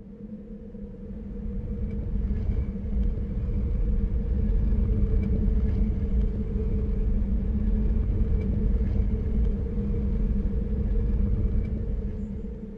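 A deep rumbling drone with two steady humming tones, swelling in over the first few seconds and fading away near the end.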